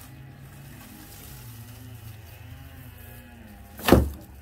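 A single loud thump about four seconds in as a load of dry brush is heaved onto a plastic wheeled yard-waste cart, over a steady low hum.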